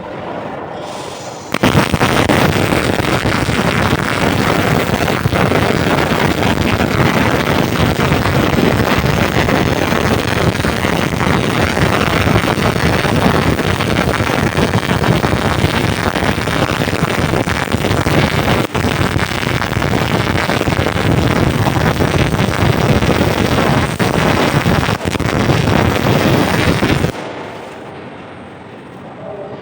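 Electric arc welding: the arc crackles and sputters loudly in one unbroken run of about 25 seconds, starting abruptly near the start and cutting off sharply near the end.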